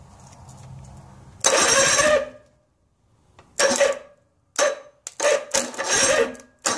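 Electric starter cranking an Evinrude 60 HP two-cylinder two-stroke outboard powerhead in five short bursts, the longest near the end. The engine is turned over for a dry compression test with the plugs out and no spark, so it does not fire.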